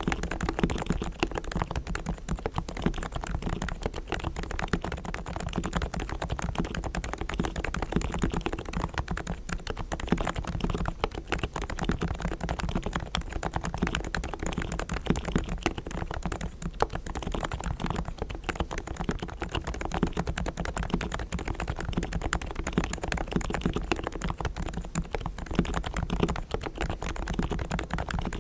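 Continuous fast typing on a Realforce R3 tenkeyless Topre electrocapacitive keyboard with 45 g silent switches, fully lubed with Krytox on springs and sliders and tuned stabilizers: a dense, even stream of keystrokes.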